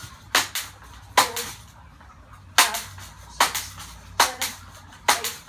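Multi-pump BB air rifle being pumped by hand: a sharp clack with each stroke of the pump, six strokes a little under a second apart, with one longer pause midway.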